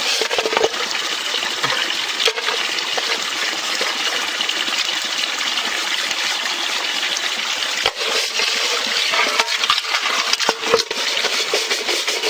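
Water splashing and sloshing in a basin as a capuchin monkey paddles its hands in it, over a steady watery hiss, with occasional sharp knocks and clinks.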